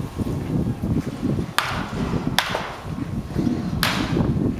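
Baseball bats hitting balls in an indoor batting cage: three sharp cracks, about a second and a half, two and a half and four seconds in, each ringing on briefly in the hall, over a low rumbling background.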